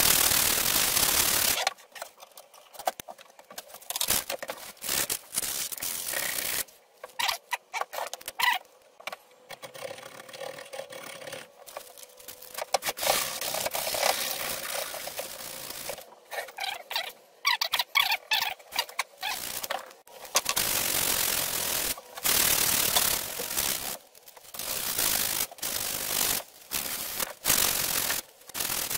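Sandpaper rubbed by hand along a wooden axe handle in runs of quick back-and-forth strokes, with short pauses between runs, to strip the handle's factory coating.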